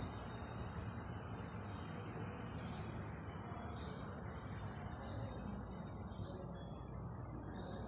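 Quiet room ambience: a steady low background noise with faint, scattered bird chirps.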